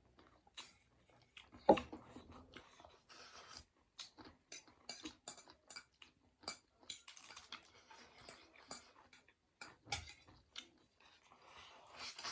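Chewing food, a run of short irregular crunches and smacks, with one sharp clink of a utensil on a dish about two seconds in.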